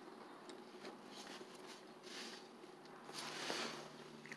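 Quiet eating sounds at a table: soft breaths and mouth sounds with a few small clicks as a spoon and ceramic bowl are handled.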